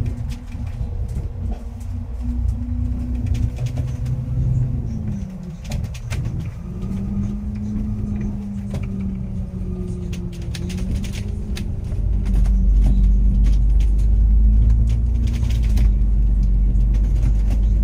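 Double-decker bus's engine and drivetrain running, heard inside the cabin, its tone dipping and rising as the bus turns and slows, with light clicks and rattles throughout. A deeper rumble comes in about twelve seconds in.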